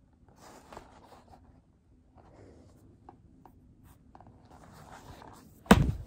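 Rustling and light taps of a large hardcover picture book being handled and lowered, with its paper pages shifting, then one loud thump near the end as the book comes down.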